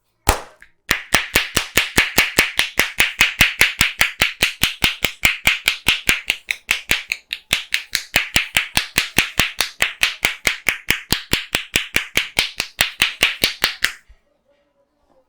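Rhythmic percussive head massage: hands clapping or slapping down on the head in a fast, even beat of about four to five strikes a second. One strike comes first, then after a short pause a long steady run, which stops abruptly before the end.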